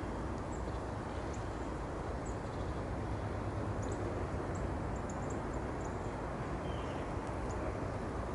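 Small songbirds giving many short, very high, thin calls, scattered irregularly, over a steady low rumble that is the loudest thing heard.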